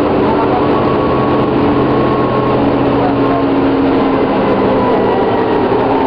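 New Flyer D40LFR diesel transit bus heard from on board: a steady engine and drivetrain drone with faint whining tones that slide slowly down in pitch near the end.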